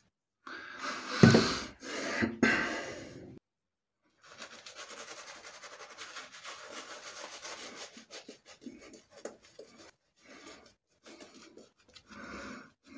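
Badger shaving brush scrubbing lather onto the face, a rapid, steady bristly swishing that breaks into shorter separate strokes near the end. Over the first three seconds there is louder, irregular rubbing of hands on the face.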